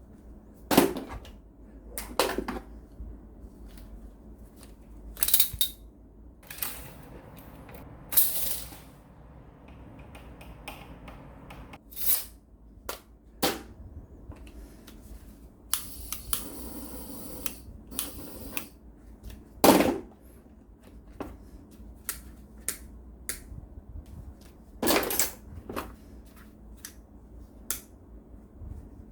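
Small hand tools being picked up and set down on a hard surface: a dozen or so irregular sharp clicks and knocks, with a longer scrape or rustle about halfway through.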